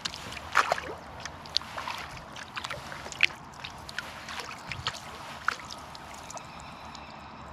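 Kayak paddle strokes: the blade dipping and water trickling and dripping off it in short, irregular splashes at an easy, steady pace. The splashes stop about six seconds in.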